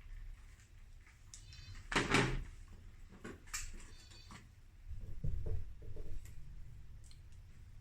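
Refrigerator door and its hinge being handled during a repair: a loud knock with a scrape about two seconds in, a few sharp clicks, then a duller thump around five seconds.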